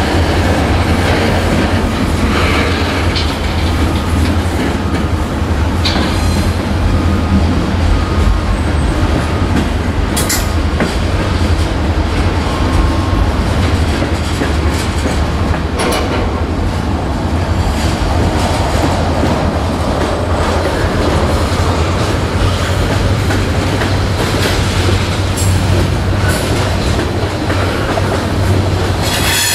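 Freight cars rolling past: a steady loud rumble of steel wheels on rail, with clickety-clack over the rail joints, a few sharp clanks and faint squeals now and then.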